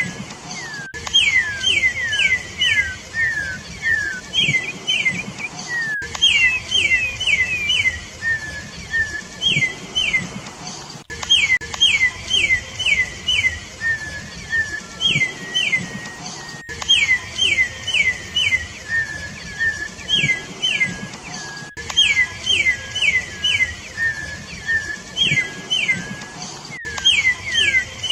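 Campo troupial (corrupião) singing: quick runs of loud, clear whistled notes over a lower held whistle, the same phrase pattern coming round again about every five seconds.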